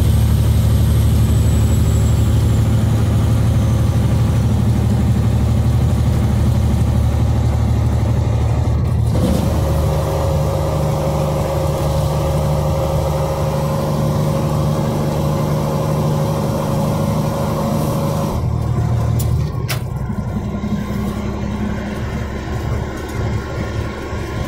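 Semi-truck's diesel engine running steadily, heard inside the cab while driving on the highway. The engine note changes abruptly about nine seconds in and again about eighteen seconds in, with a couple of sharp clicks soon after the second change.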